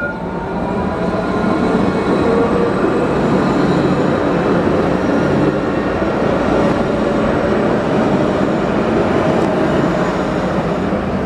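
Coupled pair of Alstom Citadis trams passing close by: a steady rumble of steel wheels rolling on the rails, with faint whining tones over it. It swells in the first second or so and eases near the end.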